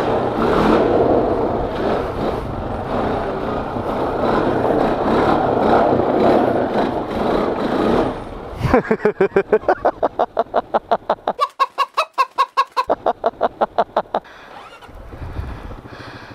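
Honda FourTrax 420 quad bike's single-cylinder four-stroke engine running under way, mixed with wind noise, for about eight seconds. Then a rising rev and a rapid rhythmic pulsing, about five beats a second, which stops about two seconds before the end.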